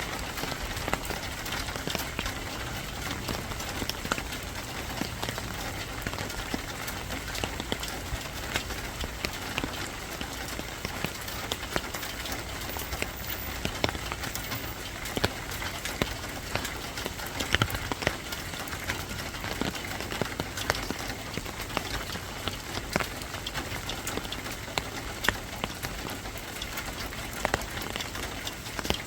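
Steady rain falling, a constant hiss with many sharp drops ticking and pattering on surfaces.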